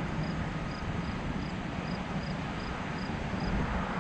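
An insect chirping in a steady rhythm, about three short high chirps a second, over a steady low background hum of outdoor noise.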